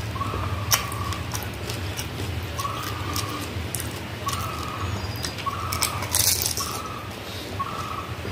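Eating sounds of fuchka (panipuri): sharp clicks and crunches of the crisp hollow puri shells being bitten and chewed, with a louder crunch about six seconds in. A short chirp repeats about once a second over a steady low hum.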